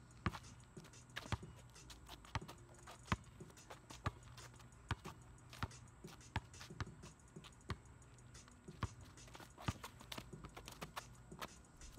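Basketball being dribbled: sharp single bounces, roughly one a second at uneven spacing.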